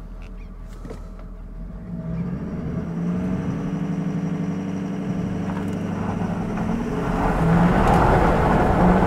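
Ford F250's 6.7 L Power Stroke V8 turbo-diesel, heard inside the cab, pulling away hard under heavy throttle. It idles low at first, then about two seconds in the engine note rises and keeps building as the truck gathers speed, louder still near the end.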